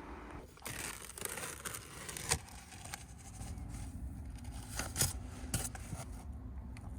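Several sharp clicks and rustling of things being handled, over a steady low rumble.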